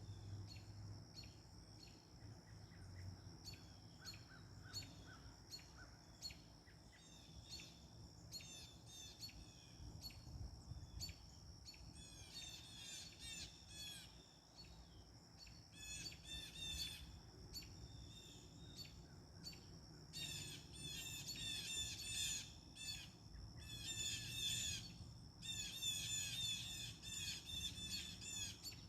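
A flock of large birds squawking and chattering in quick clusters of rapid, repeated high notes, getting louder and busier in the second half.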